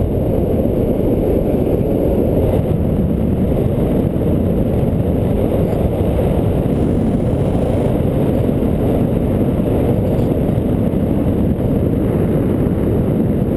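Airflow in flight buffeting the camera microphone: a loud, steady low rumble of wind noise.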